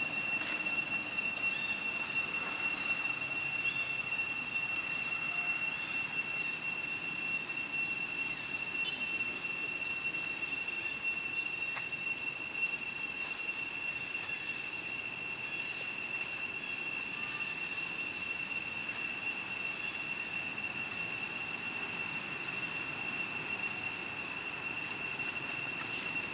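Insects droning outdoors: a constant high-pitched whine that holds steady throughout, with a few faint short chirps over it.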